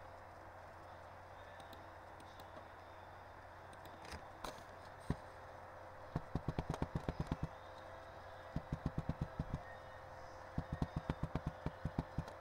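Computer keyboard keys tapped in three quick runs of about eight to ten strokes each, several strokes a second, over a steady low electrical hum; a single sharp click comes about five seconds in.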